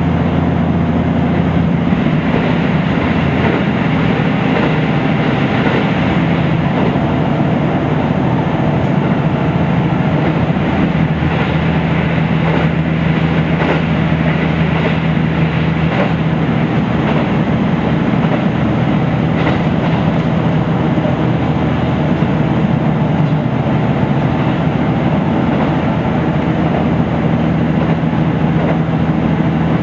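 KiHa 75 diesel railcar under way, heard from inside the car: a steady diesel engine drone with the running noise of the wheels on continuous welded rail.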